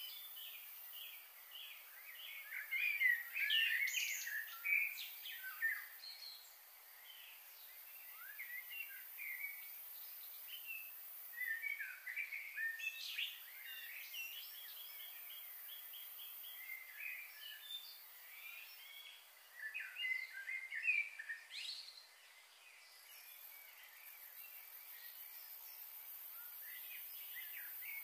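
Several small birds chirping and trilling in short bursts, busiest about a few seconds in, mid-way, and about two-thirds through, over a thin steady high hiss.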